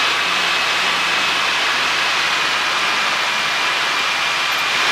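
Cabin noise of a Cessna 150 in flight: its Continental O-200 four-cylinder engine and propeller running steadily, under a constant hiss of airflow over the cockpit.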